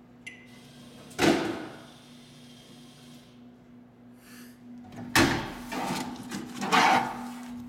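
Snack vending machine dispensing a candy bar. A short keypad beep, then a clunk as the spiral coil's motor starts and whirs for about two seconds. A sharp thud about five seconds in as the bar drops into the delivery bin, then knocks from the delivery flap being pushed open near the end, all over a steady low hum from the machine.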